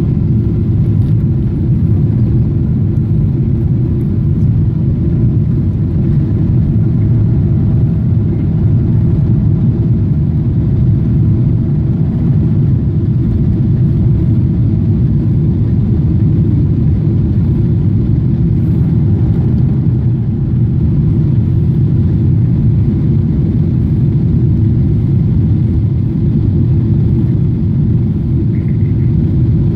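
Cabin noise of a Boeing 777-300ER climbing after takeoff, heard inside the cabin: its GE90-115B engines and the airflow make a loud, steady low rumble. A faint steady tone runs through the first half.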